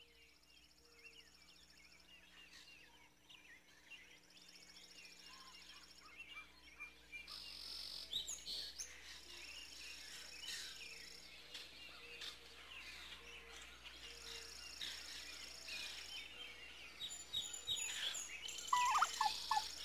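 A faint chorus of many birds chirping and calling, with insects trilling in bouts of a few seconds, growing louder over time. A louder whistling sound comes in near the end.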